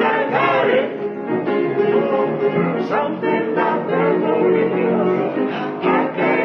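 Gospel music: singing over piano accompaniment.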